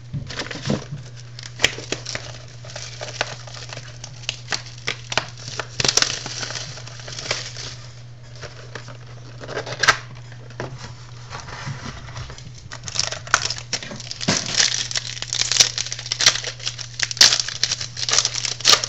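Plastic and foil wrapping on a football card box and its packs being torn open and crinkled by hand, with irregular clicks and rustles that grow busier near the end.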